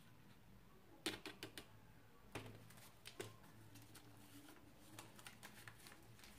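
Sparse kitchen handling clicks: a plate knocking against the rim of an aluminium cooking pot about a second in, a couple more single taps, then faint crinkling ticks as a small packet is unwrapped.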